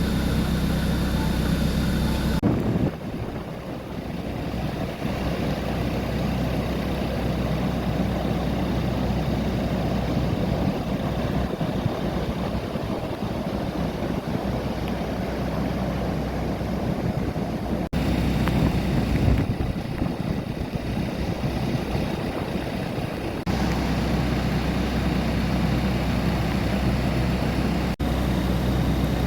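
Rough surf and strong wind noise, changing suddenly several times where clips are cut together; some stretches also carry a steady low hum.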